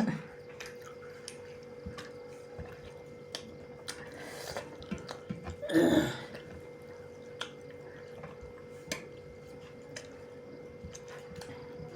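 Eating sounds at a meal: scattered light clicks of utensils on dishes and mouth noises while chewing, with a louder short mouth noise about six seconds in.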